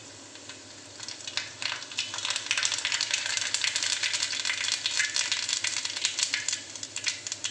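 Mustard seeds spluttering in hot coconut oil: a steady sizzle thick with sharp pops and crackles, growing about a second in as the seeds start to burst.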